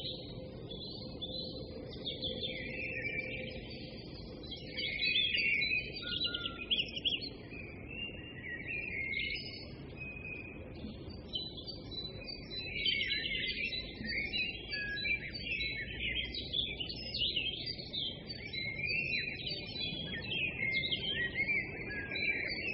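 Many birds chirping and singing at once: a dense run of quick, high chirps and trills with short gaps, over a faint low hiss.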